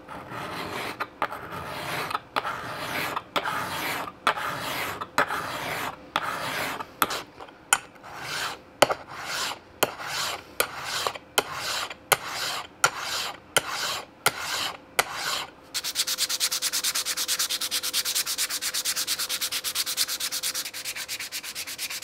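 Small cast aluminium piece rubbed back and forth across a flat hand file, rasping strokes a little over one a second. From about 16 seconds in it changes to fast, even rubbing on sandpaper, many strokes a second.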